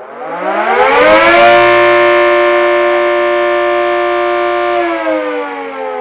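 Homemade electric air raid siren, a rotor blowing air through a 10-slot ring and a 6-slot ring so that it howls at two pitches at once. It spins up with a rising howl over the first second and a half, holds a steady loud howl for about three seconds, then winds down with falling pitch near the end.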